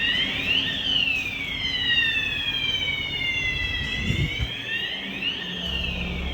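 Electronic fire alarm sounder on test, sounding a siren-like wail. Its pitch climbs quickly, falls slowly, and climbs again about every four and a half seconds.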